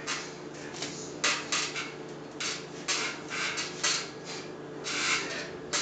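Short hissing bursts in uneven clusters of two or three, the movement and effort sounds of a man hanging upside down from a power tower doing crunches, over a faint steady hum.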